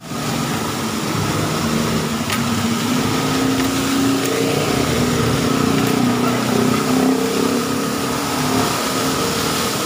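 Motorcycle engine running at low speed, its pitch rising and falling a little, over a steady rushing hiss.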